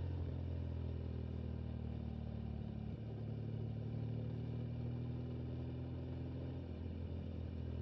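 BMW motorcycle engine running steadily while riding at motorway speed: a low, even hum whose pitch shifts slightly about three seconds in and again near the end.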